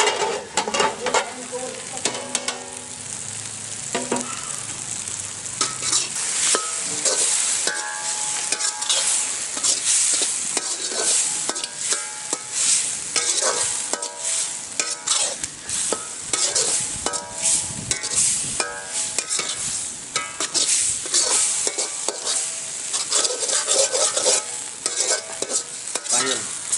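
A flat spatula stirring and scraping a masala of onions and ground spices frying in a black iron kadai: a steady sizzle under short, repeated scraping strokes against the pan.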